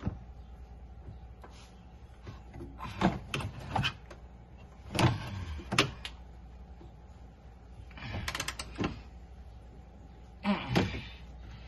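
Hands working at a Polaris RZR's seat-belt mount: scattered knocks, clicks and rattles of plastic and metal parts, coming in a few irregular clusters.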